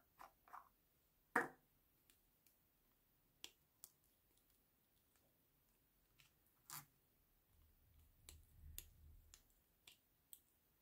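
A small plastic spatula scraping and tapping waxy lip balm out of its round plastic shell: sparse, faint clicks and small sticky crackles, the loudest about a second and a half in.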